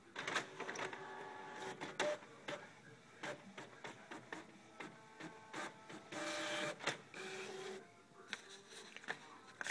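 Canon PIXMA MX850 inkjet all-in-one printing a page: its motors whir in a series of short passes, with clicks between them, starting abruptly and holding one longer steady run about six seconds in.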